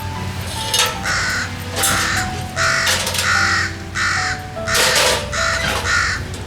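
Crow cawing repeatedly, a series of about ten harsh caws in quick succession.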